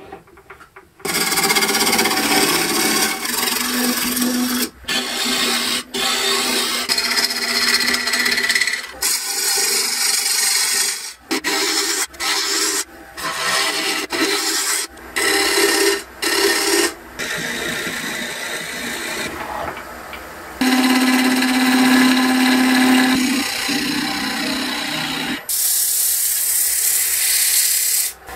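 A wood lathe spinning an oak blank while a turning gouge cuts it, heard as a run of short cutting passes with abrupt breaks between them and a steady tone in the middle stretch. Near the end comes a bright, even hiss of abrasive sanding the spinning wood.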